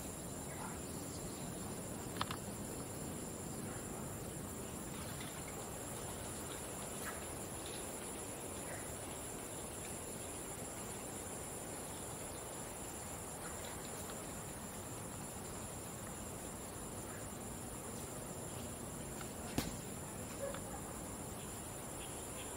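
Steady, high-pitched insect chorus over a faint outdoor background, with two sharp clicks, one about two seconds in and a louder one near the end.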